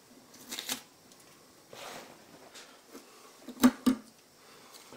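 Workbench handling noise as the cast-iron grinding arbor is taken apart: light rustling of newspaper and small clicks of tools and parts, with two sharp knocks a little past halfway.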